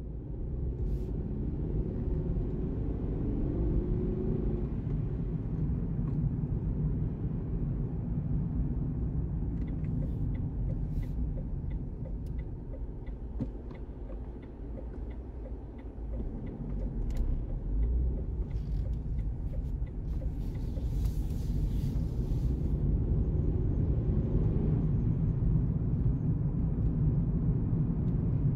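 Steady low rumble of tyre and engine noise heard inside a car cruising at highway speed, with scattered light clicks and rattles partway through.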